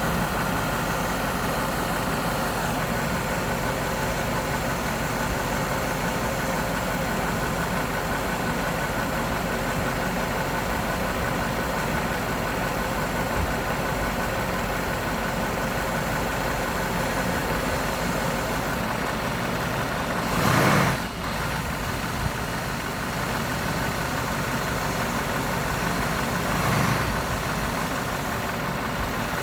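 2001 Cadillac DeVille's Northstar V8 idling steadily, with a brief louder swell about two-thirds of the way through and a smaller one near the end. The car has bad motor mounts.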